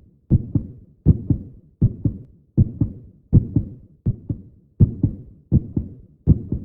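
Heartbeat sound effect: a steady lub-dub rhythm of paired low beats, about 80 a minute.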